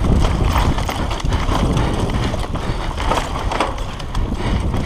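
RAAW Madonna full-suspension mountain bike running fast down a dirt trail: a rough, uneven rumble of tyres on dirt and the bike rattling over bumps, with wind buffeting the on-bike camera microphone.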